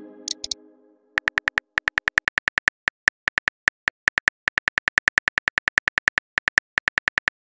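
Phone keyboard typing sound effect: a rapid, irregular run of short clicks, about seven a second, as a text message is typed out. At the start, a synth chime from the app fades out, with two short high blips.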